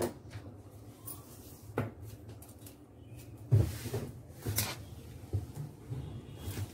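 Hands handling folded cloth and a tape measure: soft rustling of fabric with a few short knocks, the loudest about three and a half seconds in.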